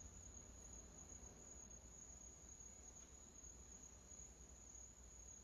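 Near silence: room tone with a steady high-pitched whine and a faint low hum.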